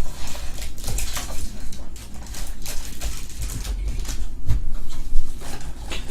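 Trading card packs and cards being handled: irregular crinkling of foil wrappers and the scrape and snap of cardboard cards shuffled by hand, over a steady low hum.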